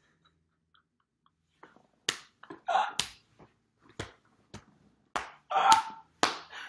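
About a second and a half of near silence, then a run of sharp smacks mixed with short breathy bursts of laughter, loudest near the end.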